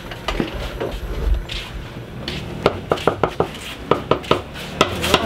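Kitchen clatter: irregular knocks and clinks of utensils in a kitchen, a few at first, then a quick run of them in the second half.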